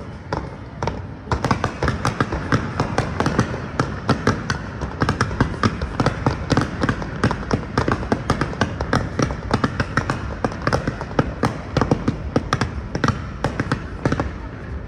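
Fireworks going off in a rapid string of crackling pops and bangs, growing much denser about a second in.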